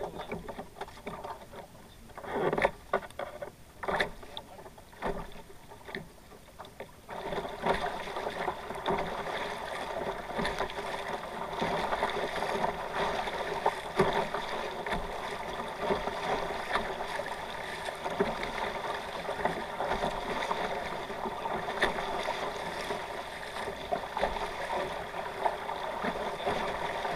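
Water splashing and rushing against the hulls of a kayak catamaran under sail. A few separate splashes come in the first seconds, then from about seven seconds in a steadier, louder rush of water.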